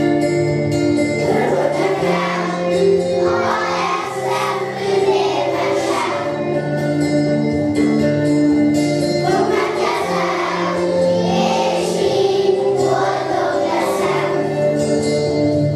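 A group of young children singing a song together, over a steady musical accompaniment of held notes.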